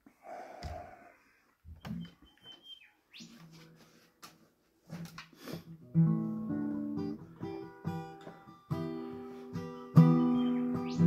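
A few knocks and rustles of handling, then an acoustic guitar with a capo is strummed, chords ringing from about six seconds in, with a hard strum near the end.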